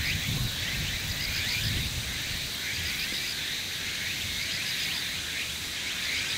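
Outdoor background of many repeated high chirping calls, ongoing and unbroken, over a low rumble of wind.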